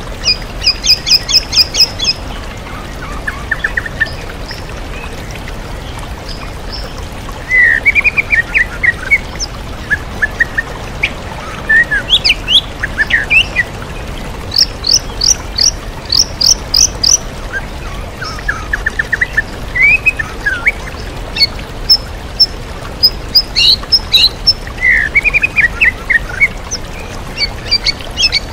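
White-rumped shama (murai batu) singing over a steady rush of waterfall water. The song comes in bursts of fast repeated high chirps and short trills, a second or two each, with brief pauses between, in the mimicked-call style that shama keepers call 'isian'.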